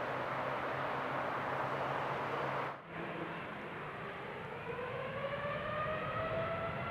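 Jet airliner engines running with a broad rushing noise. After a short break, a rising whine builds over the rumble as engines spool up or an aircraft draws closer.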